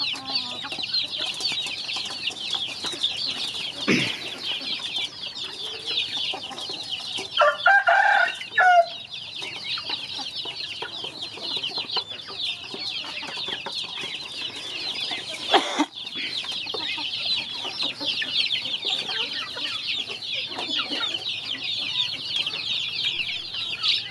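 A crowd of chicks and ducklings peeping all at once, a dense, high, continuous chatter of rapid chirps. About eight seconds in a louder, lower call from an adult bird cuts through, and there is a sharp knock about four seconds in and again near sixteen seconds.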